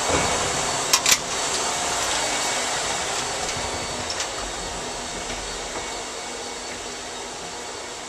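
Vacuum cleaner running with a steady whooshing hiss that slowly fades. Two sharp clicks come about a second in.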